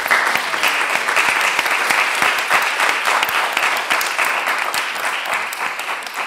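Audience and panel applauding, a dense, steady clapping that starts to taper off near the end.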